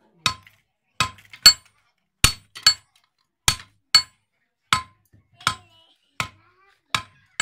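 Blacksmith's hand hammer striking a red-hot steel bar on a small anvil: about eleven sharp metallic blows at a steady pace of roughly one and a half a second, each with a brief ring. This is hot forging of scrap steel.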